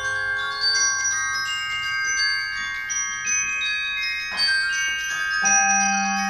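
Mallet percussion ensemble playing a quiet passage: high notes struck one after another on keyboard percussion and left ringing over one another, with a lower note coming in near the end.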